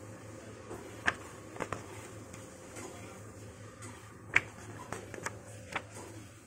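Pages of a paperback graphic novel being turned by hand: a string of short, sharp paper flicks and snaps, the loudest about two-thirds of the way through, over a low steady hum.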